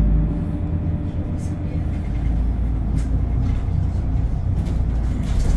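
Inside a moving Isuzu city bus: a steady low rumble of engine and road noise, with a single sharp click about three seconds in.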